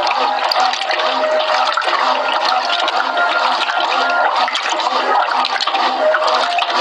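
Brastemp Clean 6 kg top-loading washing machine agitating a double duvet: water churning and sloshing steadily in the tub, with a faint regular pulse under it.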